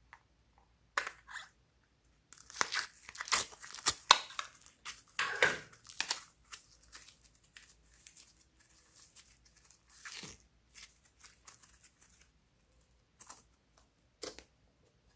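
Slime being squished and stretched by hand, making sticky crackles and pops. They come in a dense run from about two seconds in to about six seconds, then as scattered pops.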